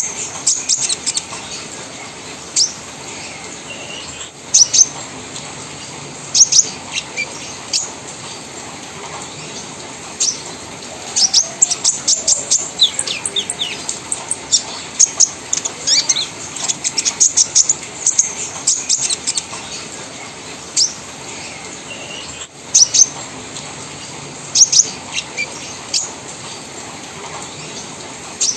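Caged kolibri ninja (purple-throated sunbird) singing its trotol-style chattering song: repeated bursts of high, thin chips and fast runs of notes, with short pauses between the bursts.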